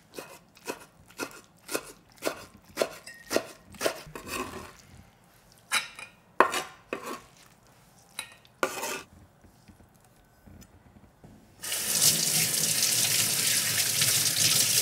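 A large knife chopping kimchi on a wooden cutting board, about two strokes a second, followed by a few scattered knocks as the chopped kimchi is pushed into a stainless steel bowl. After a short quiet gap, a kitchen tap runs steadily into a stainless steel sink with hands rinsing under it, the loudest sound.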